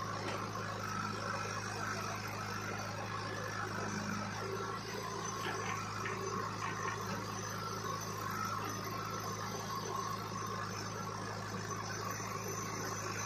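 Diesel engine of a JCB backhoe loader running steadily with a low, even hum while the backhoe works.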